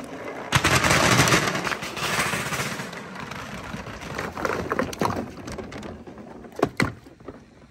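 A batch of large clear plastic Dragon Ball replica balls rolling and knocking together down a perforated-board chute: a dense clatter starts about half a second in and thins out to scattered knocks. They splash into a tub of water at the bottom.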